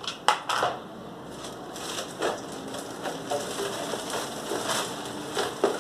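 Plastic items and packaging being handled: crinkly rustling with a few sharp clicks and knocks.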